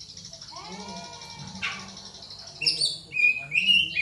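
Oriental magpie-robin (kacer) singing. It gives a fast trill of high repeated notes, then, from about two and a half seconds in, a louder run of varied whistled notes that slide up and down.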